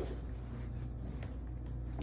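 A lull in a cat's hairball-hacking fit: a few faint short wheezy breaths between its coughing hacks, over a steady low hum.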